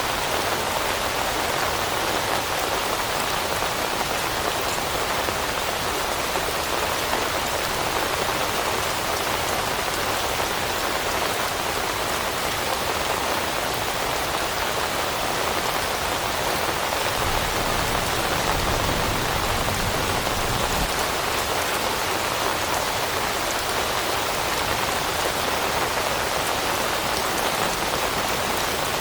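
Steady rain falling on forest leaves, an even hiss of countless drops. A low rumble swells briefly about two-thirds of the way through.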